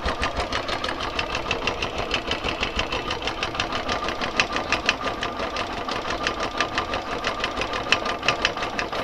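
Royal Enfield Classic 350 single-cylinder engine idling with a rapid, even mechanical ticking clatter. It is an abnormal engine noise that the mechanic is tracing among the hydraulic tappets, the crank and the timing gears.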